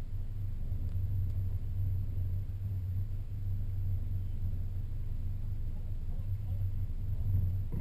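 Boat's outboard motor running at idle, a steady low hum.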